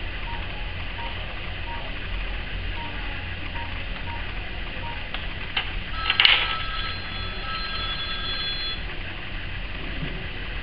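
Faint short beeps repeat through the first few seconds. About six seconds in comes a clatter, then a ringing, bell-like tone that holds for a couple of seconds before stopping.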